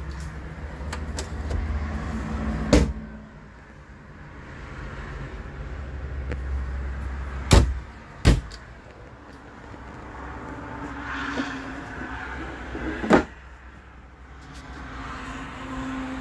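Wooden cabinet drawers and a pull-out shelf sliding in and out on metal runners with a low rolling rumble. Four sharp knocks sound as they are shut, two of them close together midway.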